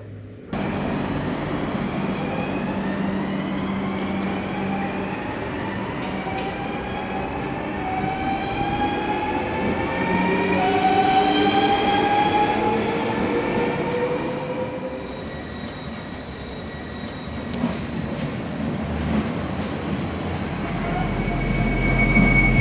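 Electric passenger train accelerating: its traction motors whine in several tones that rise steadily in pitch for about fourteen seconds over the rumble of wheels on rail. After that the whine holds at a steady high pitch, and a low rumble grows near the end.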